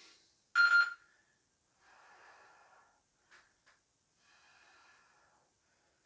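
A short electronic interval-timer chime about half a second in, ending a Tabata work interval, followed by faint breathing, a few slow breaths about a second long each.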